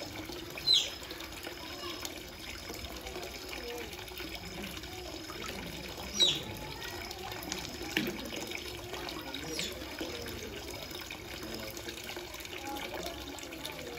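Water running steadily from a pipe into a trough, with a few short high chirps that fall quickly in pitch, near the start and about six and nine seconds in, and a single knock about eight seconds in.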